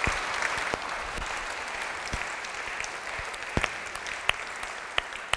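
Audience applauding steadily, with a few louder single claps from people close by.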